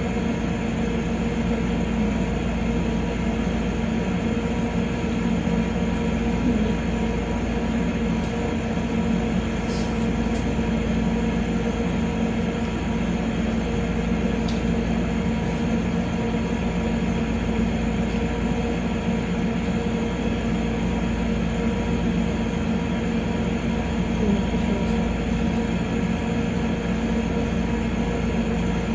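A steady mechanical hum: a low rumble with a few steady tones over it, unchanging throughout.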